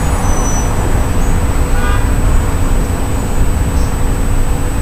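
Steady low rumble of room background noise, with a thin, steady high whine above it.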